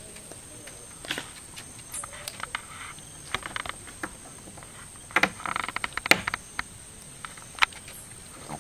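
A parrot's beak and feet tapping and clicking on a wooden bench as it walks along it: scattered sharp taps, a short rattly run of clicks about five seconds in, and a single loudest click just after it.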